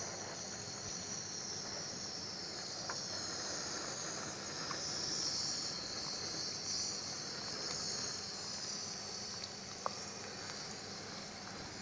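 Chopped onions sizzling in hot oil in a karahi, a steady frying hiss, with a few light knocks of a wooden spatula as they are stirred. The onions are frying to the point of browning.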